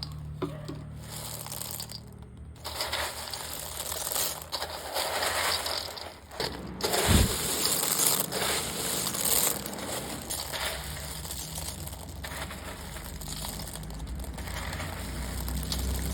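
Dried coffee beans rattling and clattering as they are handled, scooped and poured, in dense runs of small clicks. Loudest from about seven to ten seconds in.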